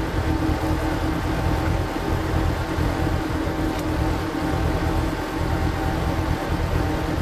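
A walk-behind power tiller's single-cylinder diesel engine runs steadily, driving a screw-type log splitter. The audio is sped up to double speed, which raises the engine's pitch.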